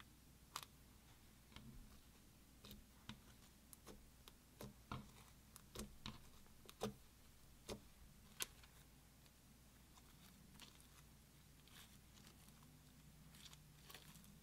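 Faint, scattered sticky clicks and small pops of beaded clear slime being handled, folded and pressed by hand. Most of the clicks come in the first half or so, with a few more near the end.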